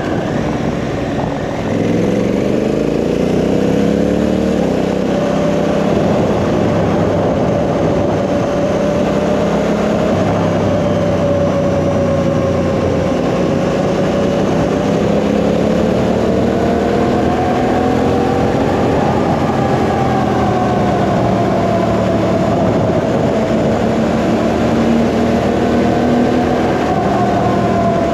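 Honda Africa Twin CRF1000's parallel-twin engine under way: a few seconds in it pulls hard, its pitch climbing steeply, then settles into a steady cruise with slight rises and falls in pitch. A steady rushing noise from riding runs underneath.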